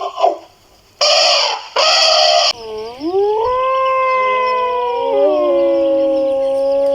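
Two short harsh calls, then from about two and a half seconds in several dogs howling together, long overlapping howls that rise and then hold at different pitches.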